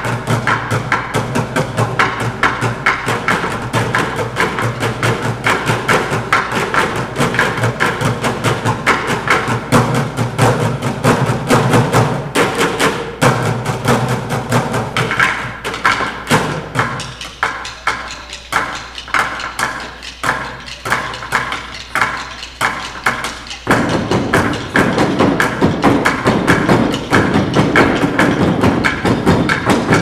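School percussion ensemble playing a piece: a dense stream of quick struck strokes. About halfway through the low end drops out and the strokes become sparser and lighter, and the full ensemble comes back in about eight seconds later.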